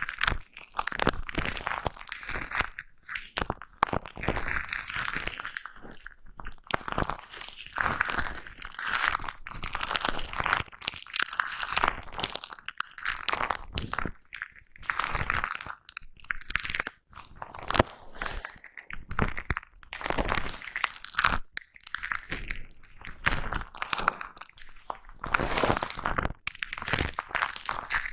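A foam-covered microphone being brushed up close: a steady run of short, noisy rubbing strokes, roughly one or two a second, with sharp clicks between them.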